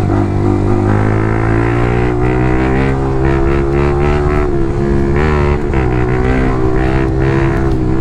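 Yamaha R15's single-cylinder four-stroke engine running as the bike is ridden, its note rising gently over the first few seconds and then holding fairly steady.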